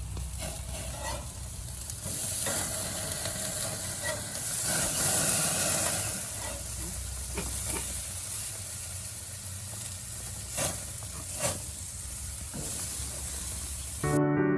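Food sizzling steadily on an outdoor grill, with a couple of sharp clicks about two-thirds of the way through.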